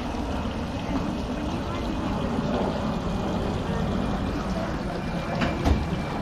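Indistinct chatter of a crowd over a steady low rumble, with one brief knock about five and a half seconds in.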